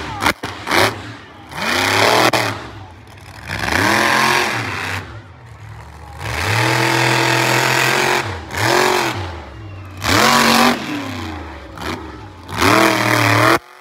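Monster truck engine revving hard in repeated bursts, its pitch climbing and dropping with each blip, with one longer held rev about halfway through. The sound cuts off suddenly near the end.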